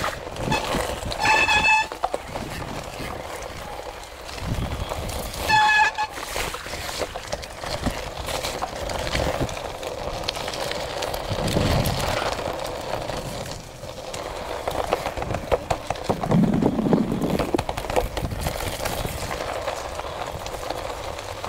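Electric mountain bike riding over a wet gravel and mud trail: a continuous rumble of tyres and rattling of the bike. The Magura disc brakes give two short, high squeals, about a second in and again near six seconds.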